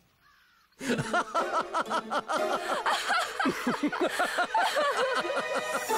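After a brief hush, a crowd of many voices starts laughing together about a second in, with chuckling and giggling overlapping.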